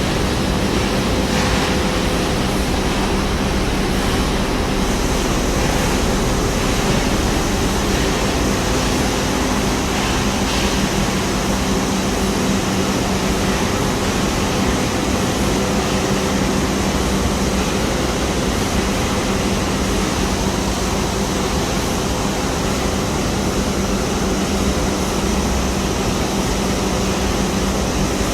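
Steady machinery noise of an automated corrugated-cardboard handling line running, an even rush with a low steady hum under it.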